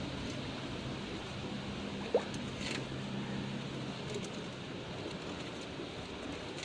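Steady rushing outdoor noise with a low steady hum that stops about three and a half seconds in, and one short sharp rising chirp about two seconds in.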